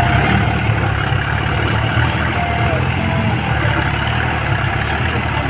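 Tractor diesel engine running hard under load, a steady low drone with no let-up, as the wheels try to pull out of deep mud.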